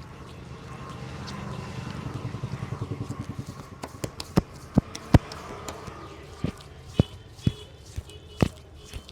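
Hand strokes of a barber's head massage: a fast, even run of chopping taps that builds up and dies away, then sharp slaps about twice a second.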